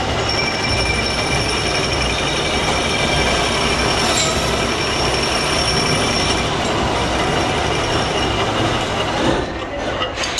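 Belt-driven metal lathe turning a steel sprocket blank, the cutting tool giving a steady high-pitched squeal over the machine's running noise. Near the end the squeal dies away and the spindle stops, with a few sharp clicks.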